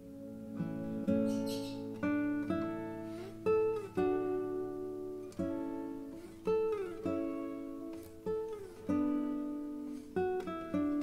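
Background music: a plucked string instrument, likely an acoustic guitar, plays a slow melody. Each note starts sharply and fades, and a few notes slide in pitch.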